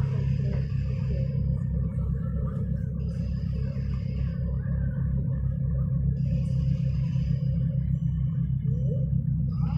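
Steady low engine rumble with a deep hum and fast, even pulsing.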